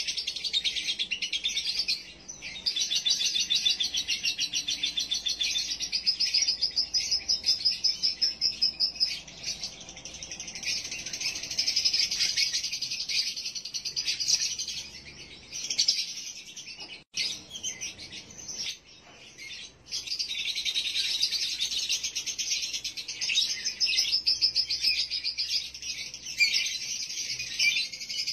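Male lovebird's rapid, high chattering song, the long unbroken 'ngekek' trill that breeders call konslet, sung in breeding condition. It comes in long runs, with a few short breaks around the middle.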